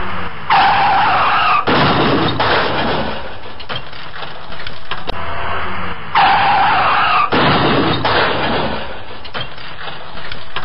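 A car's tyres screeching in a skid, then a crash with breaking glass and clattering debris. The sequence plays twice: the screech about half a second in and again about six seconds in, each followed about a second later by the crash.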